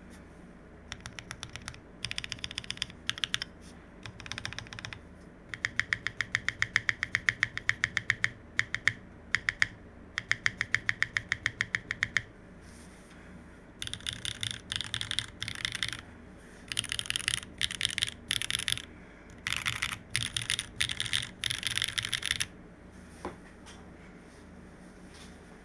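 Typing on a Monstargear Sangeo65 mechanical keyboard with stock pre-lubed Owlab Neon switches on an aluminium plate, modded TX stabilisers, GMK Hennessey keycaps and no foam. The keystrokes are clacky and come in bursts with short pauses between them, including a run of quick, even keystrokes in the middle.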